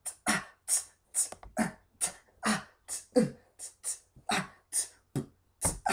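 A man beatboxing with his mouth: a steady run of short percussive beats, a little over two a second.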